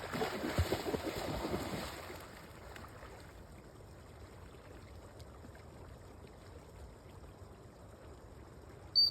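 Labrador retriever splashing into water, a loud rush of splashing for about two seconds, then only faint steady water and outdoor noise. A brief high tone sounds near the end.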